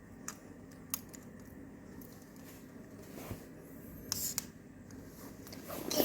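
Scattered light clicks and taps from a plastic toy robot being handled.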